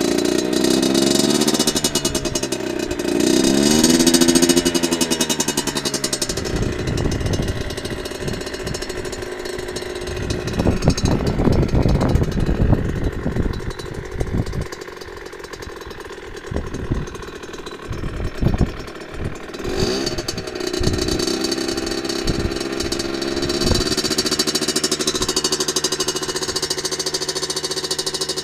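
Rieju MRT 50's 50 cc two-stroke engine, revved in a couple of blips near the start. Through the middle it runs choppy and uneven with scattered knocks, then after another blip about twenty seconds in it settles into a steady idle.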